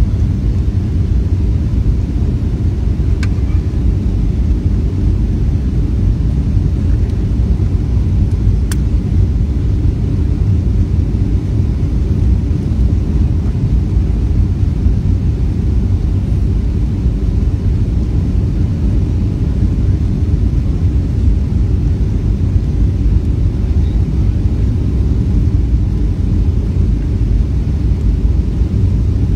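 Steady low rumble of a jet airliner's engines and rushing air, heard from inside the passenger cabin during the descent to land. Two faint clicks come about three and nine seconds in.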